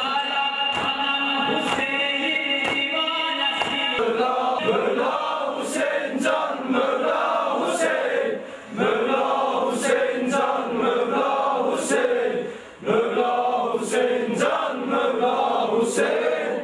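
Male voices chanting a Shia mourning lament (noha) for Hussein in unison, with regular chest-beating thumps about once a second keeping time. The chant drops out briefly twice in the second half.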